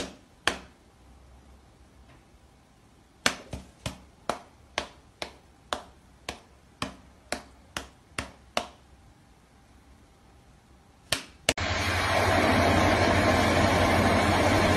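A cat's paw and a person's open hand slapping together: a run of about a dozen sharp slaps, roughly two a second, with a few more before and after. Near the end a steady hiss takes over.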